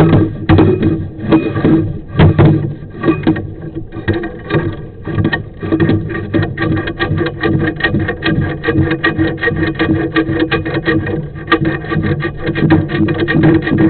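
Sewer inspection camera's push cable rattling and knocking rapidly inside a cast iron drain pipe as it is fed down, getting busier after about five seconds, over a steady hum.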